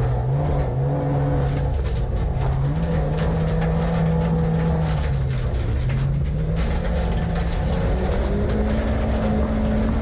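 Rear-wheel-drive rallycross car's engine heard from inside the cabin, running hard on a dirt track. Its pitch rises and falls several times with throttle and gear changes, and it climbs higher near the end.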